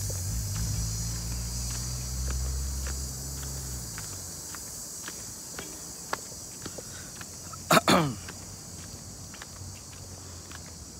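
Crickets shrilling steadily with footsteps clicking on the ground. A low engine hum dies away about four seconds in, and near the middle a loud double cry falls in pitch.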